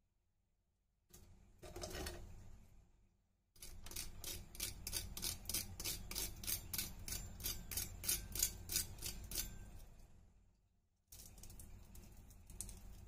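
Crisp fried crumb coating on baby corn crackling and crunching as it is broken apart by hand and pressed with a fork. A short burst of crackling comes first, then a long run of quick, evenly spaced crunches, then more crackling near the end.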